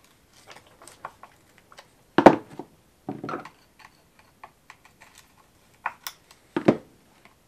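Scattered small metallic clicks and taps of pliers working on the chainsaw winch's motor mount as the power head is shifted to tension the secondary drive chain, with a few louder clunks about two seconds in, at about three seconds and near the end.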